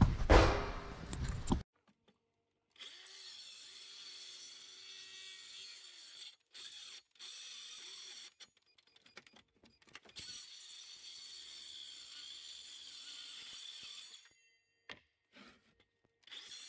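A loud rustle for about the first second and a half, then a handheld circular saw running as it is pushed along weathered wooden boards, in several stretches of a few seconds that stop and start again.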